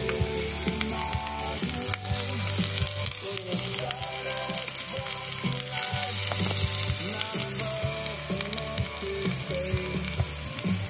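Sliced green peppers and onions sizzling steadily on a hot skottle (a disc-shaped wok) just after being dropped on, with background music under it.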